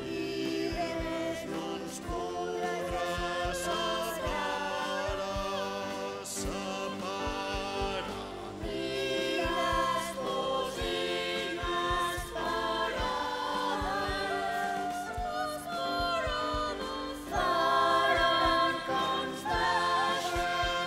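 A choir singing a song over band accompaniment with a steady beat, getting louder about three-quarters of the way through.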